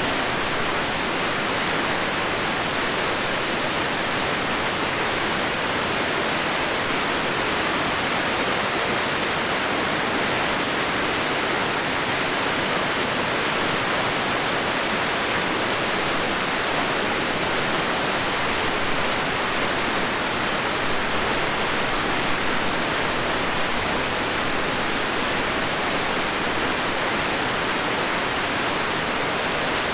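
Steady, unbroken rush of the Crystal River pouring down its falls.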